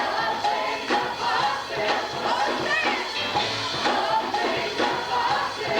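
Church worship music: voices singing together with a band keeping a steady beat.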